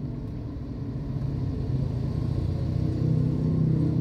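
A motor engine running with a steady low hum that gets louder from about a second in.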